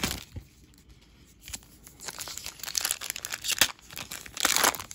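Foil wrapper of a Panini Mosaic trading-card pack being torn open and crinkled by hand. It starts about two seconds in and is loudest near the end.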